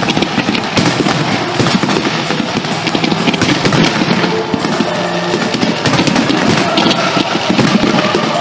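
Fireworks display: a dense, continuous crackle and pop of bursting shells, many per second.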